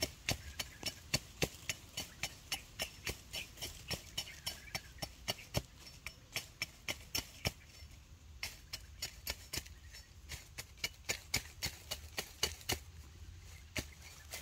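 Sharp knocks repeating about three to four times a second, with a couple of brief pauses, from hand work with a tool.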